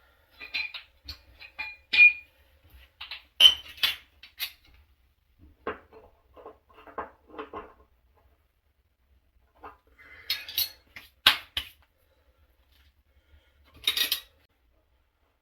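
Hand tools and small metal parts clinking and clicking in irregular clusters while an electric water heater's thermostat and element wiring are worked on, with a few sharper clanks.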